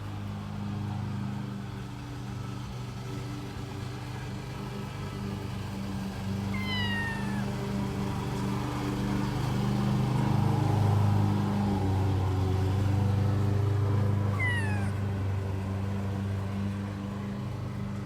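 Kitten meowing twice, each meow a short falling cry, the two about eight seconds apart, over a steady low rumble that grows louder in the middle.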